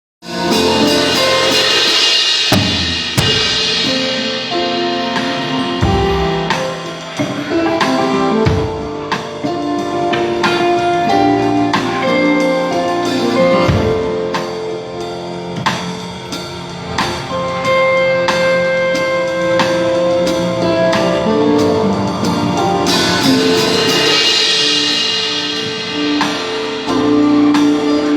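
Live band playing instrumental music at a sound check: a drum kit over held chords and a bass line, with a cymbal wash at the start and again near the end.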